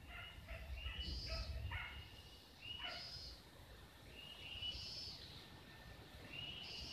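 Hunting dogs barking and yelping, a quick run of calls at first, then spaced about every one to two seconds.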